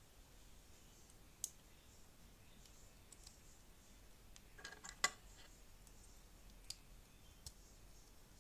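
Small plastic Lego pieces clicking against each other as they are handled and snapped into place. A few scattered sharp clicks, with a quick cluster about five seconds in that is the loudest.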